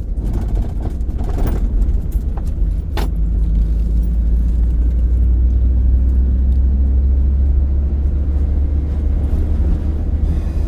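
Ford pickup truck driving, its engine and road noise a steady low rumble inside the cab that grows a little louder about two seconds in. A few light clicks and rattles come in the first few seconds, the sharpest about three seconds in.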